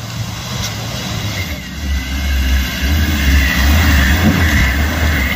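Off-road 4x4 engine running under load, getting louder about two seconds in.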